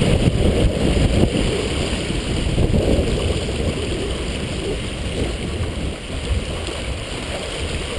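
Water rushing and splashing along the hull of a heeled sailboat under sail, mixed with wind buffeting the microphone; loudest over the first few seconds, then easing.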